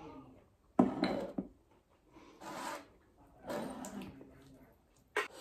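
Fingers mixing rice and dal on a plate, heard as a few short wet, rubbing bursts about a second apart. A sharp knock comes about a second in and a short click near the end.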